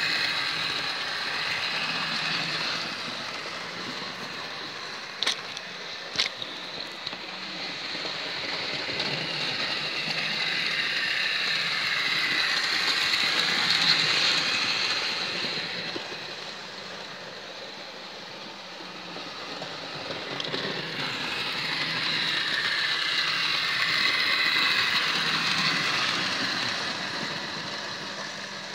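Hornby Henry model locomotive running with three coaches on model railway track: a steady whir of motor and wheels on rail that swells as the train passes close and fades as it goes round the loop, in waves about twelve seconds apart. Two sharp clicks about five and six seconds in.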